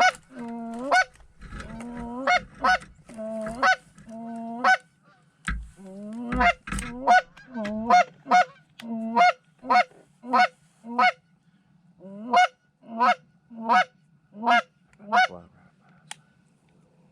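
Series of loud goose honks, about twenty in quick succession, each breaking from a low note up to a higher one, with a short pause about five seconds in and stopping about fifteen seconds in.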